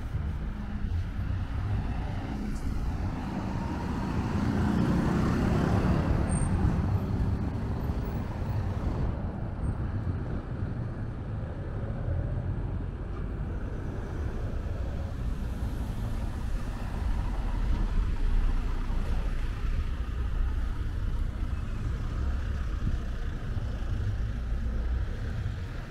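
Road traffic rumble, steady and low, with a vehicle passing about five seconds in.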